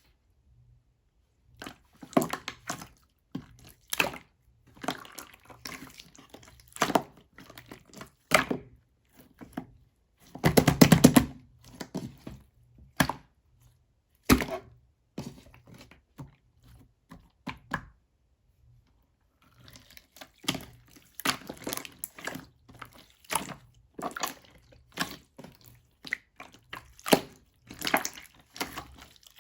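Clear slime being squeezed and stretched by hand, making irregular bursts of wet pops and clicks, with a short pause about two-thirds of the way through.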